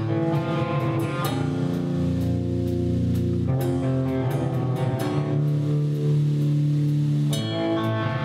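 Live band playing an instrumental passage: electric guitar and bass guitar holding long chords that change every few seconds, over drums and cymbals.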